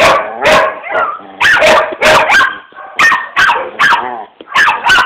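German shepherd dog 'talking': a string of about ten short vocal calls, roughly two a second, each sliding in pitch, made with a chew toy in its mouth.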